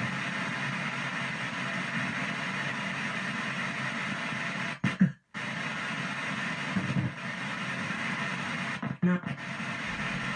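PSB7 ghost box sweeping through radio stations: a steady rush of static that drops out briefly about five seconds in and again near nine seconds, with short louder blips around each gap.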